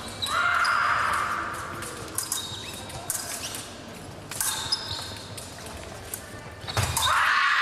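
Épée fencing on the piste: footsteps, stamps and blade clicks. Twice there is a louder burst of noise that fades over about a second, the second one just after a heavy stamp near the end.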